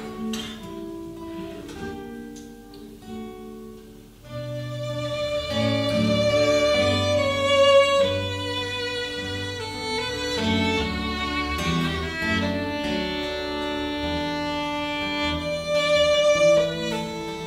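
Live instrumental intro of a folk song: an acoustic guitar picks notes alone at first. About four seconds in, bowed strings led by violin come in and hold long notes over the guitar, fuller and louder.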